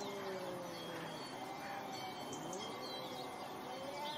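Domestic cats yowling at each other in a territorial standoff: long, drawn-out yowls that waver and slide up and down in pitch, sometimes two at once. Birds chirp faintly in the background.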